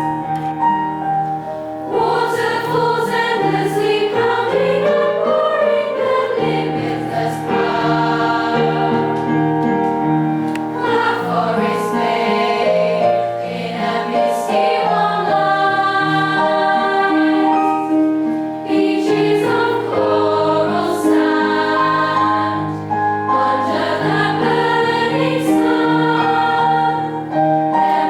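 Choir singing in several voice parts.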